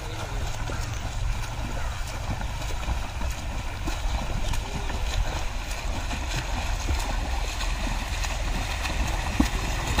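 Steady rush of river water with a low wind rumble on the microphone and scattered small knocks.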